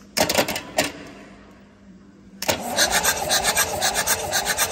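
A few sharp clicks, then about two and a half seconds in the starter motor cranks a wheel loader's diesel engine with an even rhythmic beat of compression strokes, during a compression test. The test shows only about 10 bar: the engine is worn out.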